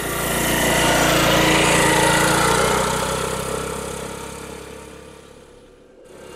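Motorbike engine running as it passes close by, loudest about two seconds in, then fading steadily as it rides away. The sound breaks off suddenly near the end.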